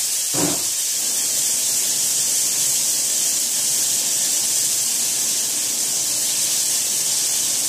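Bite-sized, cornstarch-coated chicken pieces searing in a shallow layer of hot oil in a pan, a steady high sizzle: the sign that the oil is hot enough.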